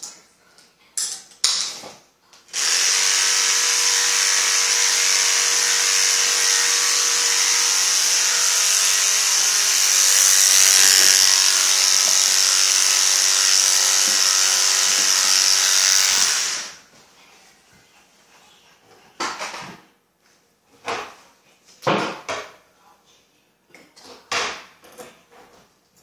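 Electric dog clippers running steadily on a Yorkshire Terrier's coat, starting a couple of seconds in and switched off after about fourteen seconds. A few short clicks and knocks follow.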